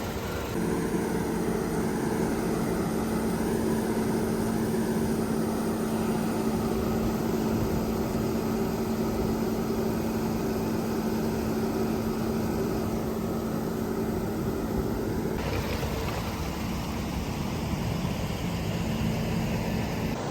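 Heavy farm machinery's diesel engine running steadily, a constant drone with a steady hum; the hum changes about three-quarters of the way through.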